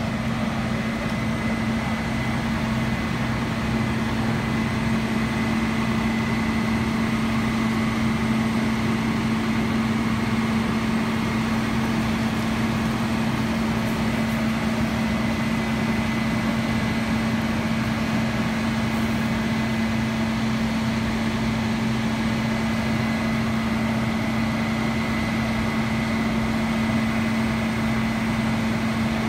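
Fire engine's diesel engine running steadily at the scene: a constant low hum with a faint high whine above it.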